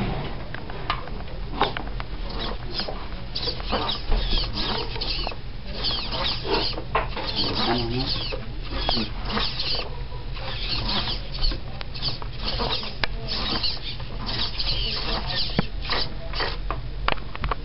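Hobby RC servos driving an animatronic mask's Meccano linkages, whirring and buzzing in many short, irregular bursts as they move, over a steady low hum.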